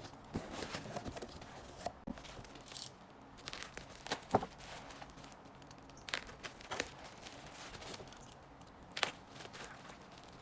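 Plastic packaging being handled, crinkling and tearing in irregular bursts, with scattered sharp clicks; the sharpest snaps come about four and nine seconds in.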